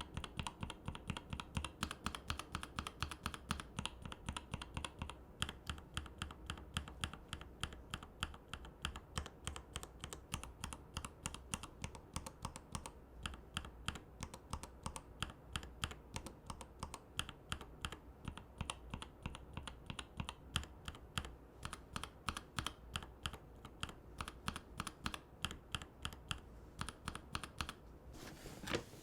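Fast, steady typing on a mechanical keyboard fitted with linear switches in a Rama M65-B case with a brass plate: a dense run of keystrokes, several a second. The character of the keystrokes changes a few times, about five seconds in, again near the middle and near the end.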